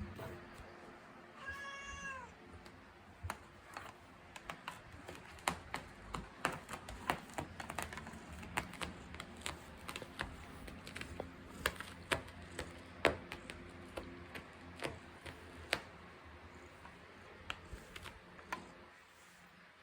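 A domestic cat meows once about two seconds in, then its claws scratch and pick at a carpet in a long run of sharp, irregular clicks that thin out near the end. The cat scratches while being stroked, which its owner takes as a sign of pleasure.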